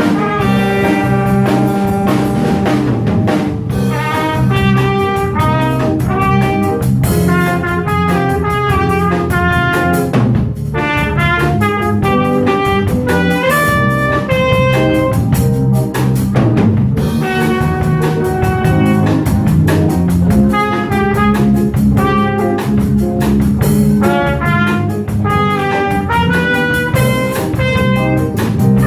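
Small jazz group of trumpet, tenor saxophone, trombone, piano, upright bass and drum kit playing, a horn melody line stepping from note to note over a walking bass and drums.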